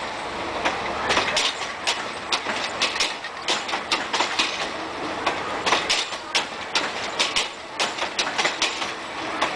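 Passenger carriages of a train rolling past. Their wheels clack sharply over the rail joints several times a second over a steady rumbling rail noise.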